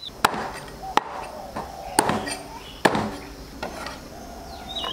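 Meat cleaver chopping a raw chicken into pieces on a thick wooden chopping block, with heavy single chops about once a second.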